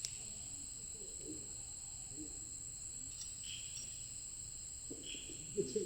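Night insects keep up a steady, unbroken high-pitched trill, with a few faint soft knocks near the end.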